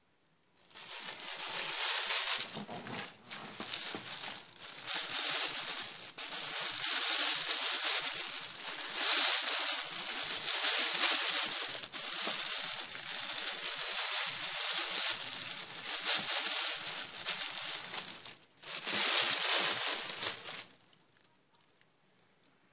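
Rustling, crinkling noise of handled material, in uneven surges with a few short breaks, stopping shortly before the end.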